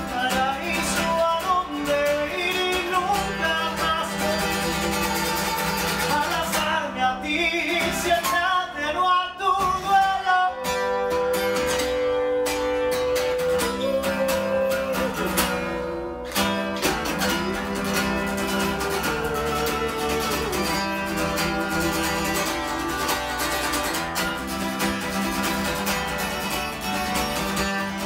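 A song with acoustic guitar and a man singing, with one long held sung note near the middle.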